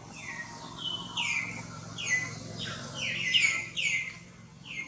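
A run of short, high-pitched animal calls, each sliding down in pitch, about two a second.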